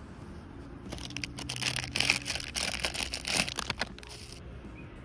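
Paper being crumpled and crinkled by hand as a charcoal fire is laid in a small steel barbecue grill: a dense crackling run that starts about a second in and stops at about four and a half seconds.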